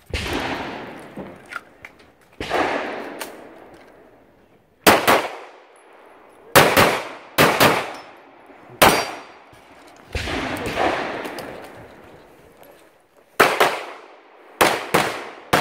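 Pistol shots fired in quick pairs and short strings, with steel targets clanging as they are hit. A few reports are followed by a long fading ring.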